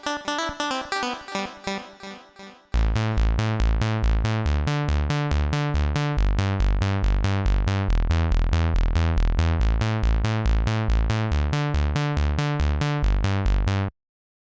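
Background music: a light plucked passage, then from about three seconds in a loud electronic track with a fast, even beat and heavy bass. It cuts off suddenly near the end.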